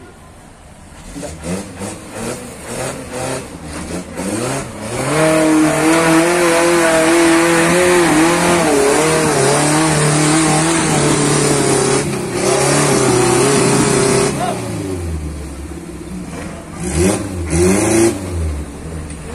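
Off-road 4x4's engine blipping in short revs, then held at high revs with a wavering pitch for about ten seconds as it works over steep rock, dropping away about two-thirds through and ending with a few more quick blips.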